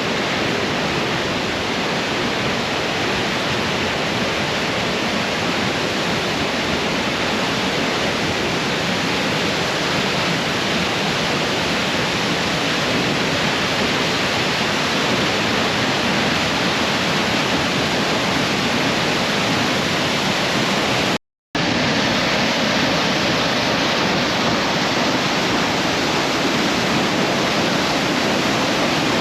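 Close-up roar of a powerful waterfall: a steady, dense rush of falling water, broken by a split-second dropout about two-thirds of the way through.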